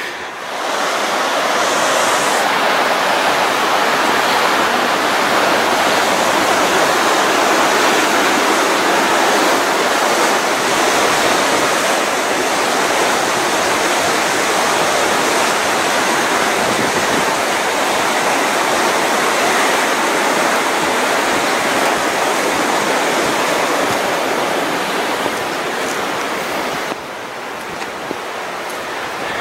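Little Qualicum River rushing below a railway bridge: a loud, steady rush of fast-flowing water that turns quieter for the last couple of seconds.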